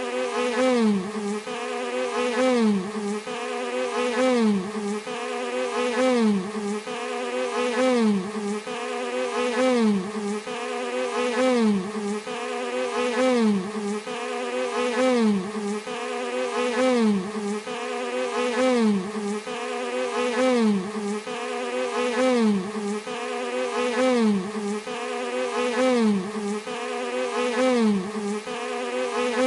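Bee buzzing continuously, its pitch and loudness dipping and recovering in an even pattern a little more than once a second.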